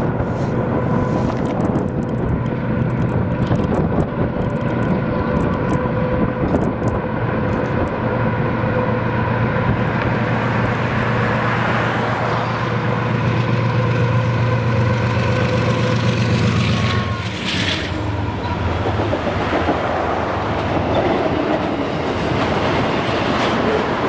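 Freight train passing: a diesel locomotive's steady engine hum and the rumble of wheels on rail, with sharp clicks over rail joints in the first half. The engine hum drops away about seventeen seconds in, leaving the rolling rumble of the cars.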